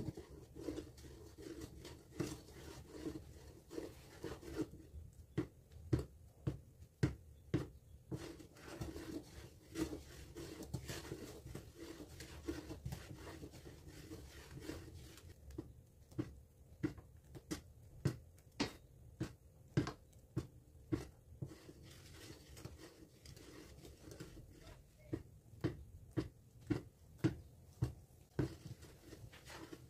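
Wooden spoon knocking and scraping against a nonstick pan while stirring a thickening, bubbling biko mixture of coconut milk and brown sugar. It makes sharp clicks about one or two a second over a steady low rumble.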